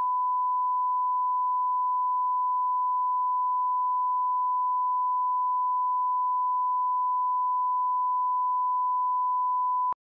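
Steady reference test tone that runs with colour bars: one pure, unchanging note, the line-up tone used to set audio levels at the head of a programme. Near the end it cuts off suddenly with a click.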